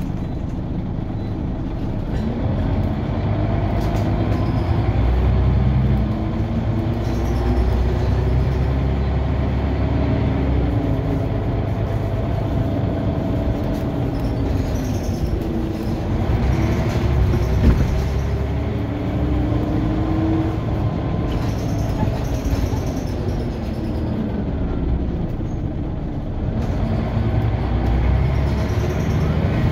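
Scania OmniCity single-deck bus's diesel engine and drivetrain heard from inside the saloon as the bus drives along, with a constant low rumble. Its pitch climbs and drops back several times as it accelerates and changes gear.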